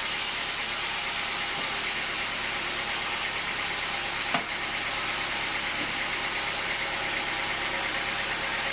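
Machinery running steadily, an even hiss with a faint hum, with one sharp knock about four seconds in.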